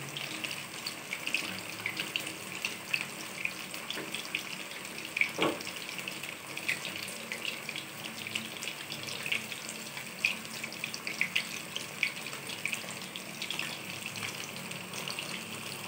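Gram-flour-coated fish pieces deep-frying in hot oil in a kadai: a steady sizzle full of small crackles, with one louder pop about five seconds in.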